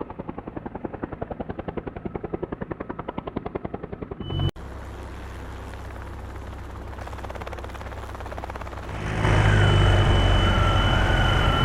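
Helicopter rotor chopping in fast, even beats of about ten a second. After a sudden cut, a steady low engine drone takes over and grows louder about nine seconds in.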